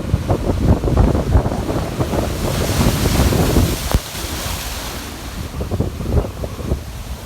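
Big sea waves breaking and washing in under strong wind, with gusts buffeting the microphone. A surge of hissing surf swells up about halfway through, with a sharp tick near its peak.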